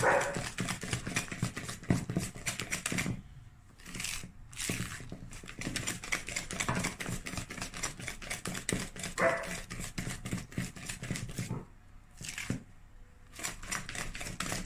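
Thick cake batter squelching and slapping against a plastic bowl as it is mixed by hand, in rapid irregular squishes that pause now and then. A short pitched vocal sound comes at the start and again about nine seconds in.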